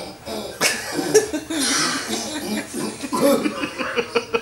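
A man coughing and laughing, then a quick, even run of short sounds near the end.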